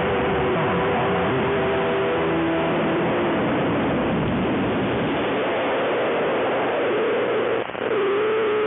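Shortwave radio reception buried in a dense, steady hiss of static and interference. Faint held musical tones sound under the noise, and the signal briefly drops out near the end.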